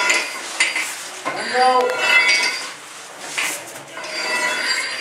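Metal hand tools, a firefighter's axe and a forcible-entry bar, scraping and clinking on a concrete floor as firefighters in full gear crawl over it, in irregular clatters, with a short wavering tone about a second and a half in.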